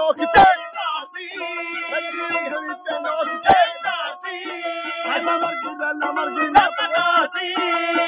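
A man singing in long, wavering held notes, accompanied by a small hand drum struck about once every three seconds.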